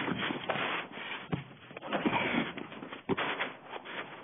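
Scuffling in a close struggle: clothing and bodies rubbing and scraping, with two dull thumps.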